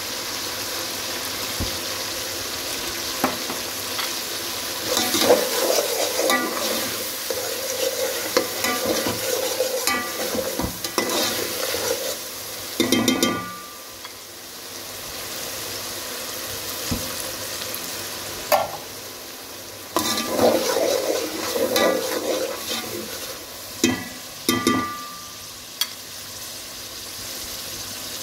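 Food frying and sizzling in hot oil in a cooking pot, stirred in irregular bouts with scraping against the pot, and a couple of ringing metallic clanks.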